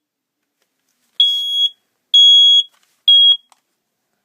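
FirstAlert battery-powered smoke alarm going off, set off by smoke from a lit match: three loud, high-pitched beeps of about half a second each, evenly spaced, starting about a second in, with the third cut short.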